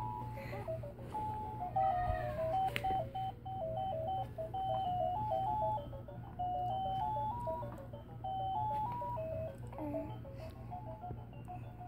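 A simple electronic tune of single beeping notes, stepping up and down, playing from a baby's activity play mat toy.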